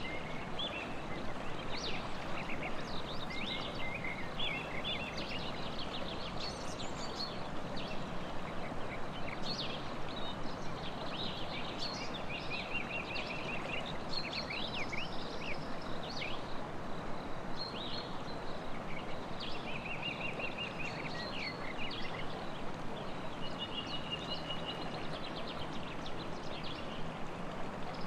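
Several songbirds singing and chirping, with repeated short trills, over the steady rush of a river.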